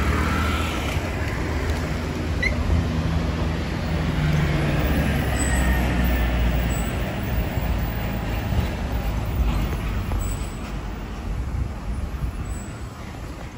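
Road traffic on a city street: a steady low rumble of passing vehicles, with a heavier vehicle going by about three to six seconds in.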